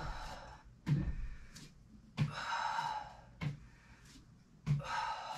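A person breathing hard through a plank with shoulder taps: a short, sharp onset about every second and a quarter, each trailing into a breathy exhale.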